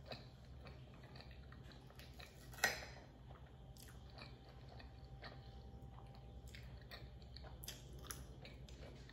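Close-up chewing and mouth sounds of a person eating creamy pasta and Parmesan-crusted chicken, with many small clicks. One sharp click comes about two and a half seconds in, over a faint steady low hum.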